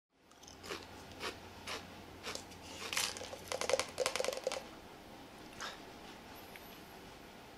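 Short crunchy clicks about every half second, then a quick rattling run lasting about a second, as a cylindrical container is handled and tipped up to a man's mouth.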